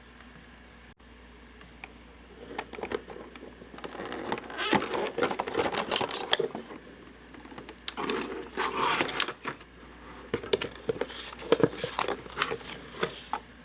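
Product packaging being unpacked by hand: irregular rustling and crinkling with sharp clicks and knocks, starting about two and a half seconds in.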